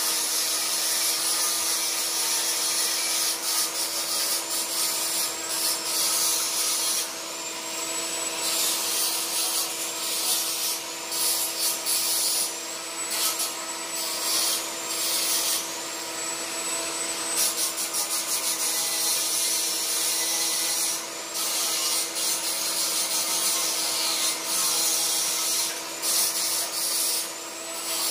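Electric arc welding on steel bars: a continuous crackling sizzle with a few brief breaks, over a steady hum.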